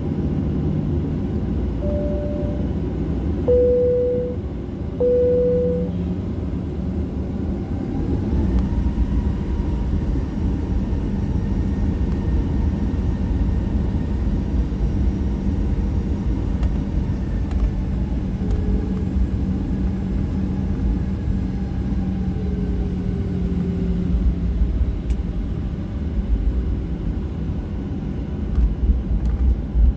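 Cabin noise of a Boeing 737-800 taxiing: a steady low rumble from its CFM56-7B engines at taxi power and the wheels rolling on the taxiway. Three short steady tones sound between about two and six seconds in, a faint whine rises a little about eight seconds in, and a few bumps come near the end.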